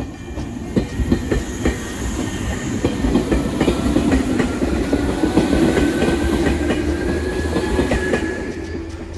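Izukyu 8000 series electric train passing close by, its wheels clacking over the rail joints, with a motor whine that rises slightly in pitch. The sound tails off near the end as the last car goes by.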